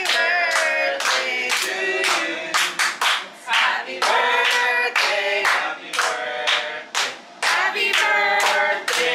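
A group of people singing a birthday song together while clapping along in a steady rhythm.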